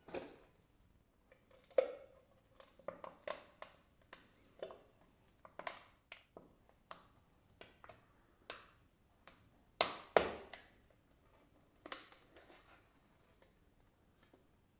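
Cardboard chip canister being opened by hand: the plastic lid is worked off and the foil seal peeled back, giving a string of sharp irregular clicks, crackles and foil crinkles, loudest about ten seconds in.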